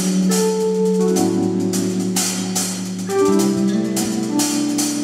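A band playing a gospel groove: a drum kit with cymbal hits over held keyboard chords and a bass line, the chords changing every second or two.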